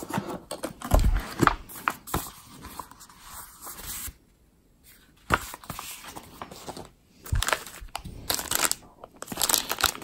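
Paper leaflets and cardboard packaging rustling and scraping as they are lifted out of a box, with a short pause about halfway. Near the end comes a denser crinkling as a clear plastic bag is picked up.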